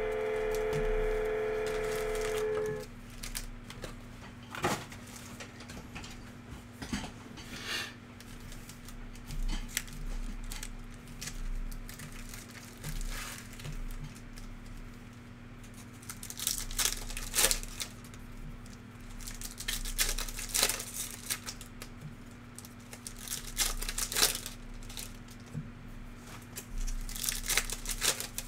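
Foil wrappers of 2021-22 Panini NBA Hoops card packs being torn open and crinkled, in irregular clusters of crackling with cards handled between them, busiest in the second half. For the first two or three seconds a held electronic tone plays, then cuts off suddenly.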